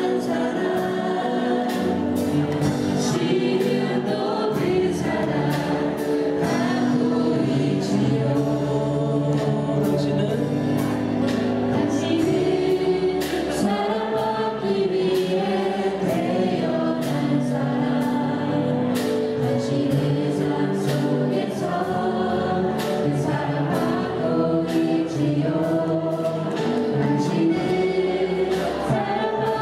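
A church congregation singing a Korean praise song together, many voices with no break.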